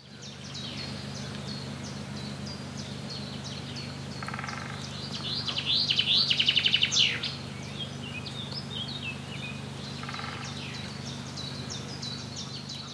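Outdoor bird chorus: several songbirds chirping and calling over and over, with a rapid trill about halfway through that is the loudest call. A steady low hum runs underneath.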